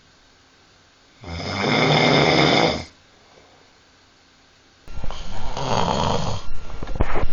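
Men snoring. One long snore with a clear pitch comes about a second in, then a pause. A little before the five-second mark it cuts abruptly to a different recording, in which a man snores with a rougher, noisier snore.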